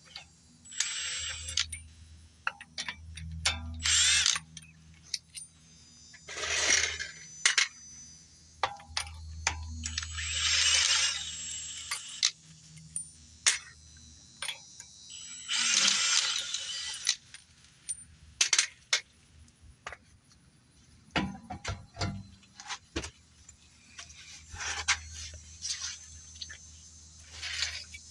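Impact wrench run slowly in short spells of a second or two, turning out the front strut bolts, with metallic clinks of tools and loosened bolts in between.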